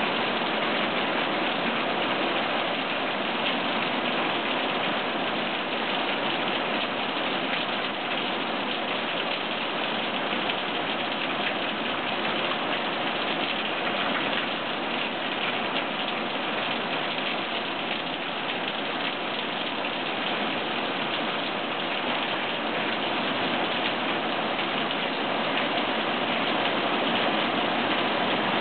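Steady rain falling: an even, continuous hiss with no let-up.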